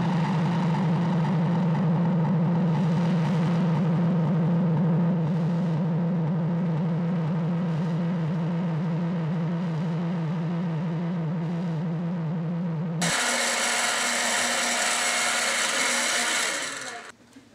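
A steady low synthesizer drone holds for about thirteen seconds, then cuts suddenly to a blender running, which dies away near the end.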